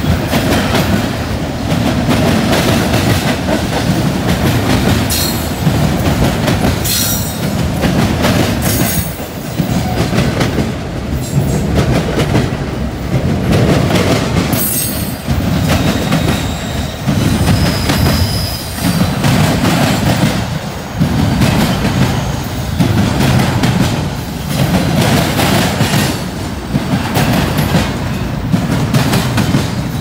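Freight cars of a Norfolk Southern train rolling over a railroad diamond: loud wheel clatter that pulses about every two seconds as the trucks hit the crossing, with sharp clicks and a faint high wheel squeal midway.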